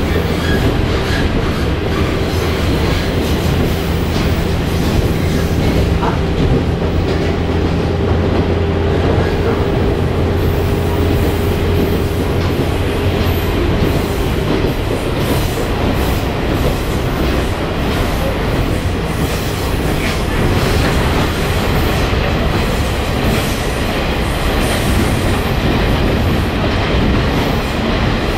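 Running noise inside a moving railway passenger car: a steady rumble of wheels on rail, with a low steady hum that fades out about halfway through.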